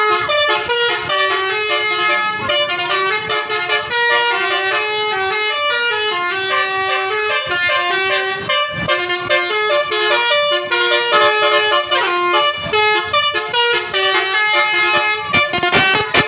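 A Basuri bus's telolet horn, a set of musical air horns, playing a quick tune of short held notes that step up and down several times a second.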